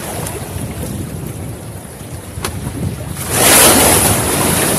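Sea waves splashing, with wind buffeting the microphone; a bigger wave crashes a little over three seconds in.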